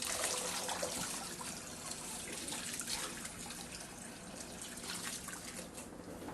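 Running water splashing and trickling onto a cat's coat as it is wetted down for a bath, a steady rushing with irregular small splashes.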